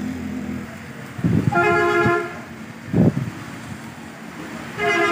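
A vehicle horn honks twice, each blast steady and about a second long, once near the middle and again near the end, over a steady background hiss of traffic on a wet road. Two short low rumbles come just before the first honk and between the two.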